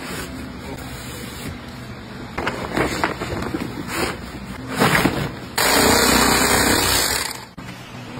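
Plastic packaging bag and paper sack rustling and crinkling as a rolled bamboo mat is bagged by hand, rising to a loud, steady rustle for about two seconds past the middle.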